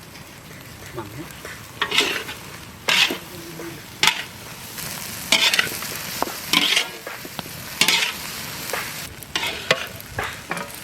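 Chopped vegetables stir-frying in a hot pan: a ladle scrapes and tosses them in short strokes about once a second over a steady sizzle.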